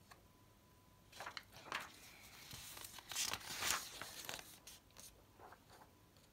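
Sheets of paper rustling and crinkling as they are handled, in a run of bursts lasting about four seconds with a few smaller rustles near the end.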